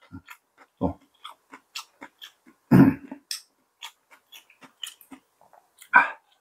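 Close-up chewing and wet mouth sounds of someone eating: a run of short sharp clicks, with a louder, fuller sound about three seconds in and another near the end.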